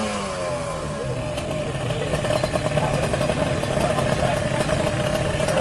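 Kawasaki Ninja R drag bike's two-stroke single-cylinder engine dropping from a rev in the first half-second, then running steadily at low revs.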